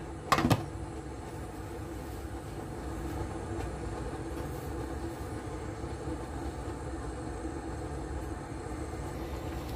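A glass pot lid is set down on a metal pan with a sharp clink about half a second in. Then comes a steady low rumble and hiss from the covered pan heating toward a boil on an induction cooktop.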